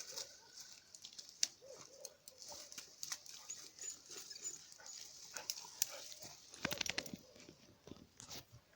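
Parson Russell terrier whining in short, arched, rising-and-falling notes: the sound of a dog excited over its stick. Scattered sharp clicks and knocks run through it.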